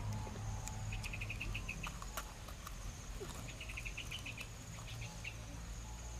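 Insects chirping in short runs of fast pulses, with a steady high tone and a low rumble underneath.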